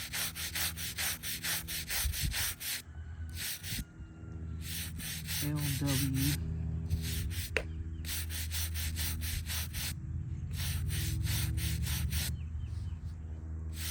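Stone headstone being scrubbed by hand in quick back-and-forth strokes, about four a second, in several runs with short pauses, over a steady low hum.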